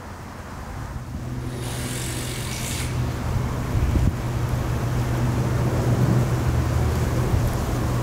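An engine running steadily, growing louder over the first few seconds, with a brief hiss about two seconds in.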